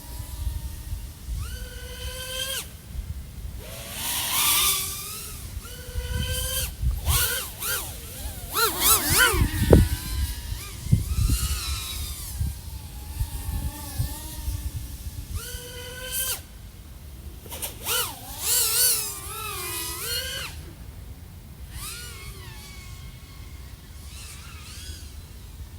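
iFlight AOS 3.5 V5 FPV quadcopter's XING 1504 3100KV brushless motors and 3.5-inch props whining, the pitch rising and falling with throttle. There are several louder surges, about four, nine and eighteen seconds in.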